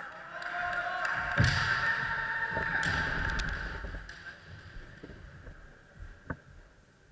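Kendo fencers' long, drawn-out kiai shouts, fading out after about four seconds, with sharp clacks of bamboo shinai strikes about a second and a half in and again near three seconds. A single sharp knock comes near the end.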